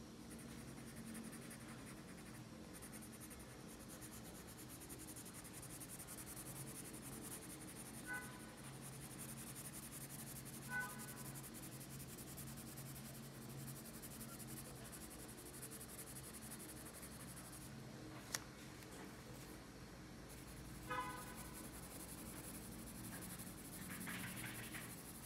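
Red colored pencil shading on paper: a faint, steady scratching of back-and-forth strokes. Three brief faint chirps and one sharp click stand out along the way.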